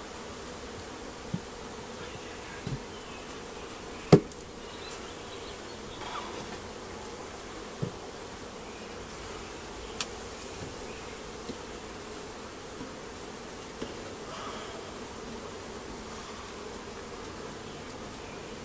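Honeybee colony humming steadily from an opened hive. A few sharp wooden knocks from frames and the hive tool are heard over the hum, the loudest about four seconds in.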